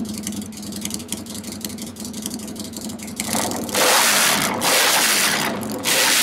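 Custom Harley-Davidson V-Rod Night Rod's liquid-cooled V-twin idling through its aftermarket twin exhaust, then revved hard three times in the second half, each blip a loud burst about a second long.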